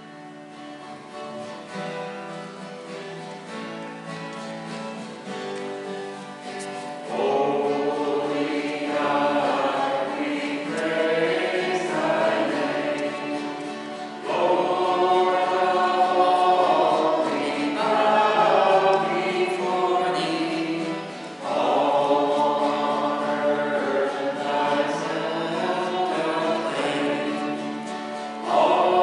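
Choir singing a hymn over a held low note, softer at first and then louder about seven seconds in, rising and falling in phrases of roughly seven seconds each.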